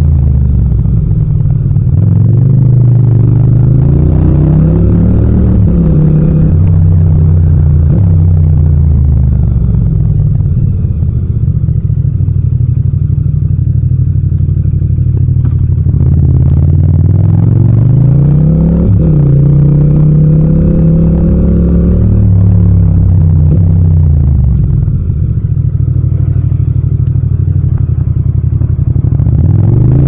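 Yamaha MT-07's parallel-twin engine running under way, heard with no wind noise. Its note climbs under acceleration, drops sharply as if through gear changes, and falls back as the throttle eases, several times over.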